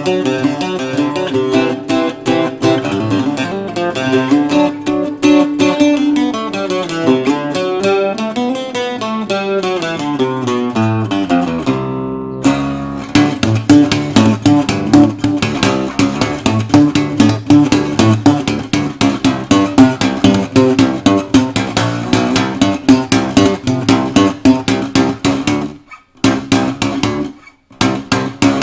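A bajo quinto strung with nickel strings, played solo: quick picked notes and strums, with a falling run that breaks off briefly about twelve seconds in, then steady rhythmic picking with two short stops near the end.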